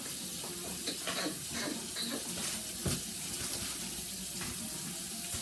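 Steady rushing water noise in a kitchen, with a few light clicks of food and packaging being handled and a single knock about three seconds in.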